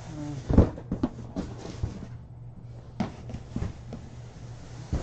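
Cardboard shipping boxes being handled and moved on carpet: a string of knocks and thuds, the loudest about half a second in, over a low steady hum.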